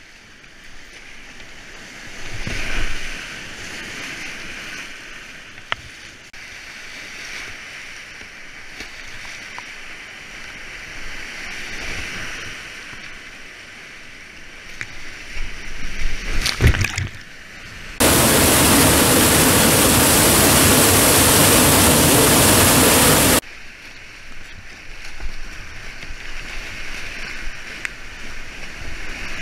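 Rushing whitewater of a flooded river heard from a kayak, with paddle strokes and splashes against the boat. Two-thirds of the way through, a much louder, even rush of water noise cuts in suddenly, lasts about five seconds and stops just as suddenly.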